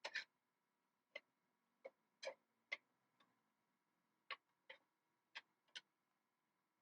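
Near silence broken by about ten faint, sharp clicks at irregular intervals, over a faint steady electronic hum.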